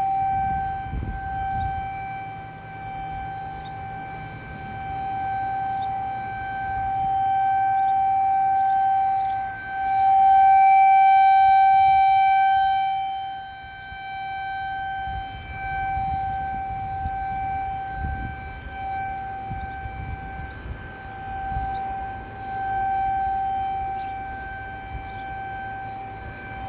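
Federal Signal 2001 DC outdoor warning siren sounding a steady alert tone: one held pitch that swells and fades in loudness every few seconds as the rotating horn sweeps around.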